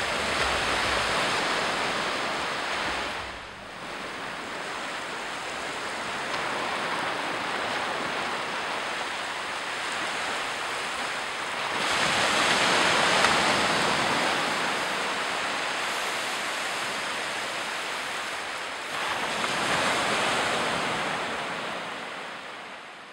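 Small waves washing onto a beach, the surf swelling three times, near the start, about halfway and near the end, then fading out.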